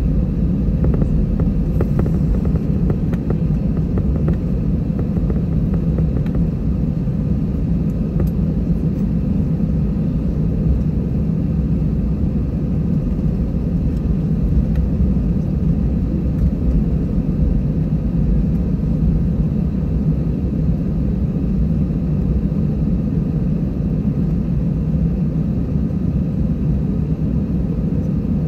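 Airbus A320-200 taxiing, heard from inside the passenger cabin: a steady low rumble from its jet engines at idle thrust, with a faint steady hum above it.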